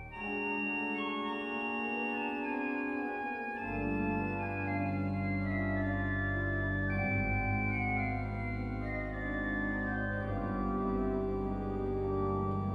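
Ladegast-Sauer pipe organ (1878, rebuilt 1914) playing sustained chords; a deep bass line joins about four seconds in and holds under the chords.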